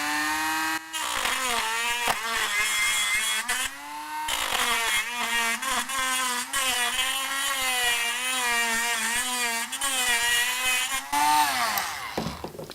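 Dremel rotary tool cutting through the plastic shell of an SDHC memory card. Its motor whine wavers in pitch as the bit bites, breaks off briefly about one and four seconds in, rises near the end and then stops.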